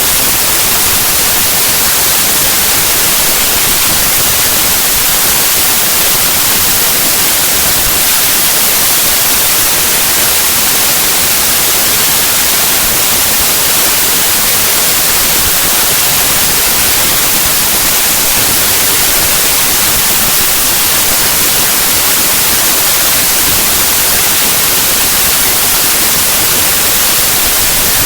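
Loud, steady, unbroken static hiss: the compressed bytes of a zip archive played back as raw 8-bit mono audio. The data is close to random, so it comes out as harsh white noise, strongest in the treble.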